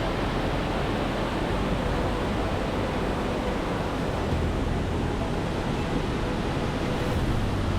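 Steady loud rush of a waterfall's cascading water, with a low rumble of wind on the microphone underneath.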